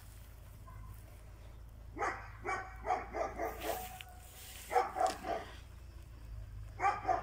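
A dog barking in three quick runs of short barks. The first and longest run starts about two seconds in, the next comes near the middle, and a shorter one comes near the end.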